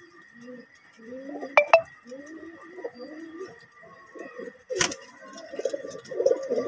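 Domestic pigeons cooing in a loft, the cooing growing fuller near the end. Two sharp clinks come about a second and a half in, and a single loud knock comes near five seconds.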